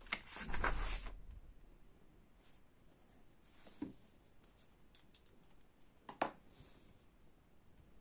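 Desk handling sounds from pen and paper: a scratchy rustle during the first second, then scattered light clicks and a couple of small knocks, the sharpest about six seconds in.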